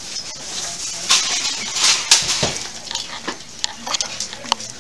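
Rustling and scattered clicks of handling noise, with a louder stretch of rustling between about one and two seconds in.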